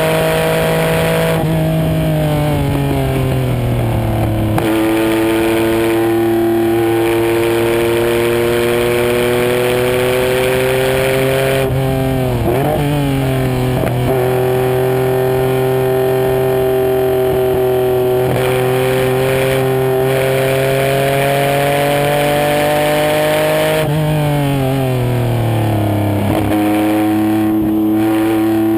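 Car engine running hard at high revs on a race track, its pitch slowly climbing under load. A few seconds in and again near the end the revs fall away and then step back up, as in braking with a downshift, and near the middle the pitch wavers briefly.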